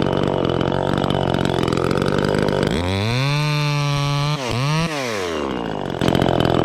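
Gas chainsaw running at idle. About three seconds in it is throttled up to a high, steady pitch for a second and a half, dips, revs briefly once more, then drops back to idle.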